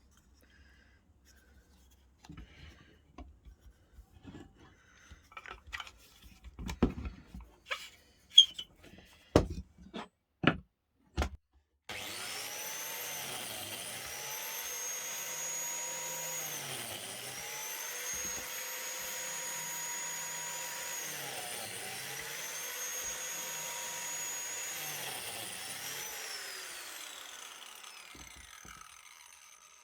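Scattered handling clicks and knocks, then about twelve seconds in a DeWalt biscuit jointer's motor starts and runs, its pitch briefly dipping about every four to five seconds, and spins down near the end.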